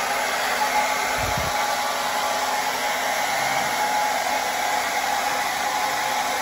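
Handheld hair dryer blowing steadily over wet watercolour paper, an even rush of air with a thin steady whine in it.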